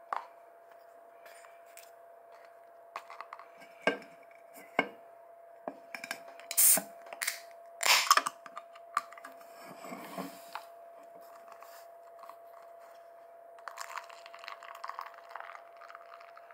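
Aluminium beer can knocked on a desk a few times, then its ring-pull cracked open with two sharp hisses about seven and eight seconds in. Near the end, beer is poured from the can into a plastic cup.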